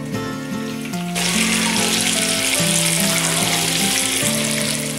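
Strips of bacon sizzling in a frying pan, the hiss starting suddenly about a second in, over background music with a steady bass line.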